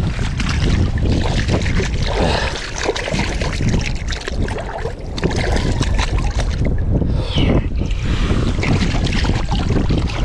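Water splashing and sloshing as a freshly bled sockeye salmon is swished and rinsed by hand in the creek shallows, with wind buffeting the microphone.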